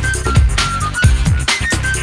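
Electronic background music with a fast drum-and-bass beat: deep, falling bass thumps under a melody of short, high held notes.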